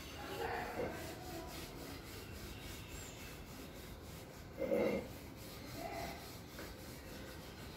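Faint rubbing and scuffling of cats tussling and grooming on a coir doormat, with one brief louder sound a little past halfway.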